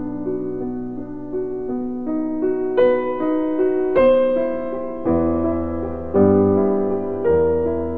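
Background piano music, with notes and chords struck about once or twice a second and left to ring.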